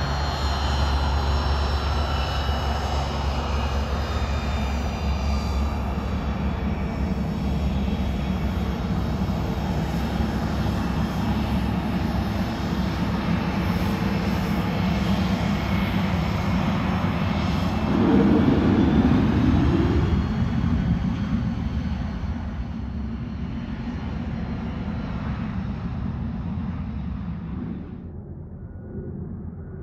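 The twin Williams FJ44 turbofans of a Cessna 525C Citation CJ4 business jet on a takeoff run: a loud jet rumble with a high whine that slides slowly down in pitch. The sound swells to its loudest a little past halfway as the jet goes by, then fades as it climbs away, dropping off sharply near the end.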